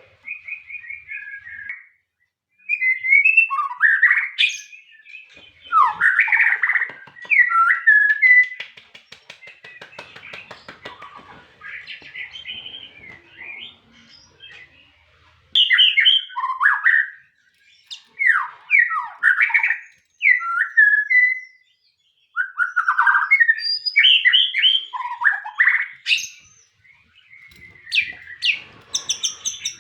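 Murai songbird singing: loud, varied whistled phrases with quick sweeps, trills and chirps, delivered in bursts of a second or two with short pauses between them.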